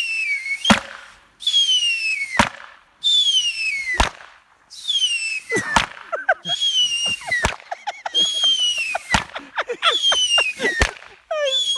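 Cheap New Year fireworks going off: about seven falling whistles, each ending in a sharp bang, with a quick run of crackling pops and short squeals in the middle.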